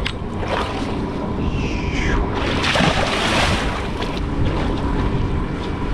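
Wind and sea noise on an offshore sport-fishing boat: a steady low rumble throughout, with a louder rush of water or wind noise around the middle.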